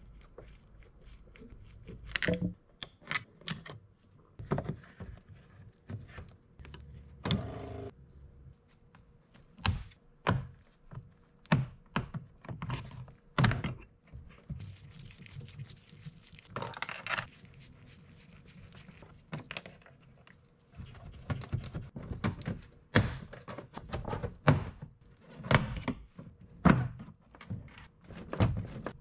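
Irregular clicks, knocks and thunks of hand tools and hard plastic trim on a Honda Civic's rear door panel: a screwdriver working the screws in the inside-handle recess, then the armrest pull trim piece being pried loose and handled, with a couple of short plastic scrapes.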